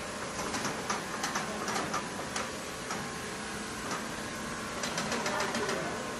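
Automatic bedding-sheet sewing line running on a factory floor: a steady machine hum with irregular light mechanical clicks and ticks, in small clusters.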